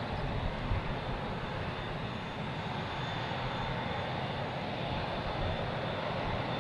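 Airbus A380's Engine Alliance GP7200 turbofans running with a steady, even rush and a faint steady high whine as the airliner rolls along the runway.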